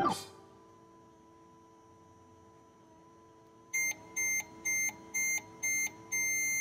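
Toy microwave (Play-Doh Magic Microwave) electronic sound effects: a faint steady hum, then five short high beeps about half a second apart and a longer final beep near the end, the toy's signal that the cooking cycle is done.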